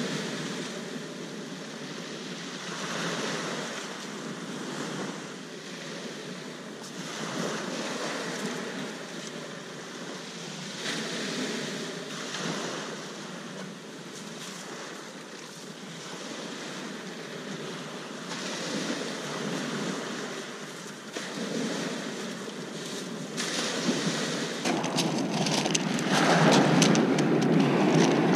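Surf breaking and washing up a shingle beach, swelling every few seconds, with wind on the microphone. Near the end it gets louder and crackly as the wind buffets the microphone.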